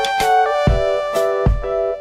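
Background music: held keyboard notes changing every half second or so over a low bass-drum thump that falls roughly every 0.8 s.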